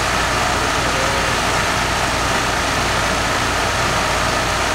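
A 5-ton air conditioning condensing unit running in cooling mode: compressor and condenser fan giving a steady, even hum with a whooshing airflow, and no starts, stops or knocks.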